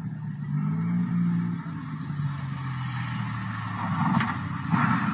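Single-engine light aircraft's piston engine and propeller droning steadily as it comes in to land, the pitch shifting slightly. About four seconds in it grows louder and rougher, with a rushing noise, as the plane nears.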